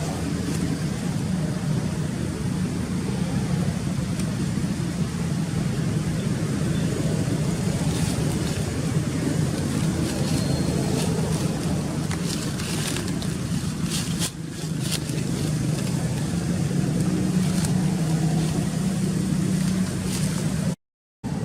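A steady low engine hum with a constant drone, with a few faint ticks in the middle and a brief dip about halfway through.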